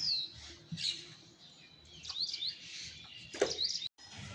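Small birds chirping in short, quick, high calls that slide downward, with a sharp knock about a second in and another near the end.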